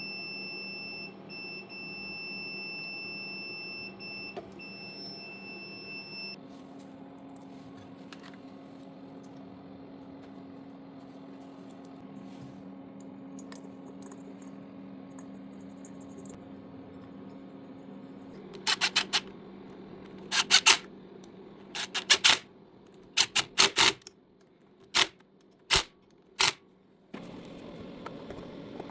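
A multimeter's continuity tester beeping steadily across the ignition points of a Honda ATC70, dropping out briefly a couple of times and then cutting off about six seconds in as the points open at the F timing mark. Later a run of loud, sharp clacks.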